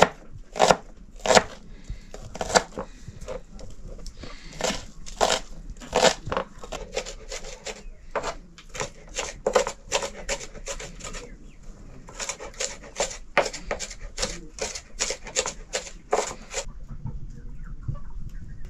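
Knife chopping food on a cutting board: sharp, uneven strokes that get quicker, about three a second, in the last few seconds, then stop shortly before the end.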